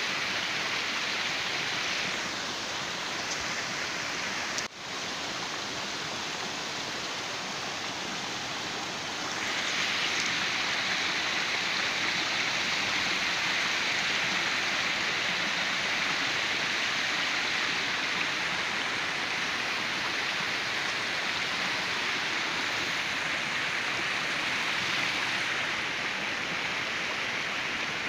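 Stream water running over stones in a steady rush. About five seconds in there is a brief click and dip, and about nine seconds in the rush grows louder and hissier.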